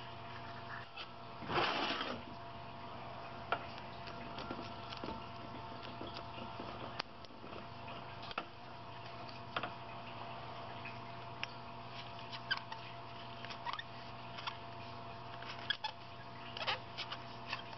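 Small handling sounds as new rubber O-rings are stretched onto aluminium oil preheater parts and the parts are set on a stainless steel table: scattered light clicks and taps, with a louder scraping rustle about two seconds in. A steady hum runs underneath.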